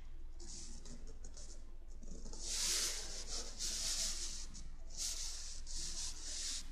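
Soft rubbing and brushing noises, a series of short hissy strokes that are loudest in the middle, over a low steady hum.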